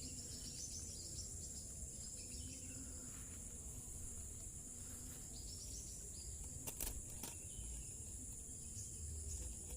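Steady high-pitched insect chorus with a few short chirps scattered through it, and two faint clicks about seven seconds in.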